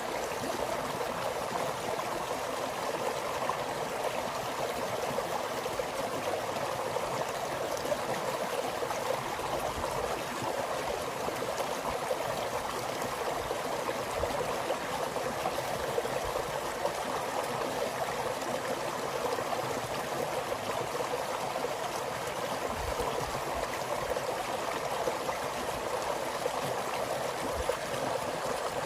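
Snowmelt runoff water flowing steadily in a small stream, an even rushing and gurgling.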